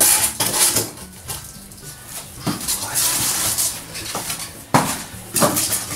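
Styrofoam insulation board being handled and fitted between wooden floor battens: irregular rubbing and scraping noises with a few sharp knocks.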